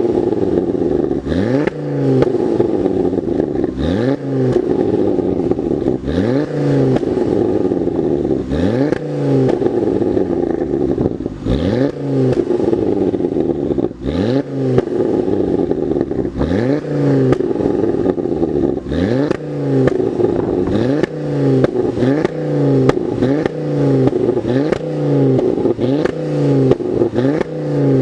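Ford Focus ST Mk2's 2.5-litre turbocharged five-cylinder engine given repeated short throttle blips through its exhaust, each a quick rise in revs and drop back, about every second and a half.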